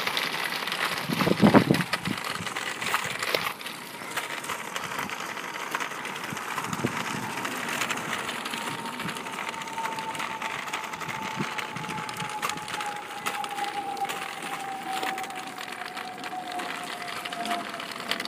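Razor MX electric dirt bike riding along the sidewalk: a thin motor whine slowly falling in pitch through the second half, over steady outdoor noise, with a single thump about a second and a half in.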